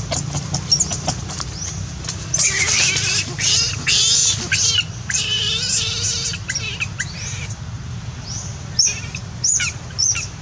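Newborn macaque giving shrill, wavering distress cries: a run of high squeals from about two seconds in to about five seconds, more squeals after that, and a few short sharp cries near the end, over a steady low rumble.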